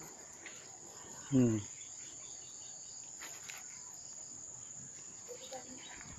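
Steady high-pitched insect drone, with one short, low voice-like sound that drops in pitch about a second and a half in.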